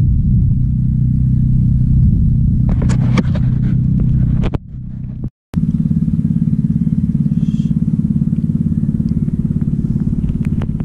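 Small outrigger boat's engine running steadily with a fast, even pulsing beat. A few light clicks and knocks come about three seconds in, and the sound cuts out briefly near the middle.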